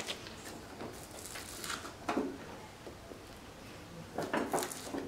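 Faint rustle of a greased polythene sheet on a wooden board, with a few soft knocks as a lump of warm sesame-sugar mixture is set down on it. There is a dull knock just after two seconds in and a cluster of crinkles and knocks about four seconds in.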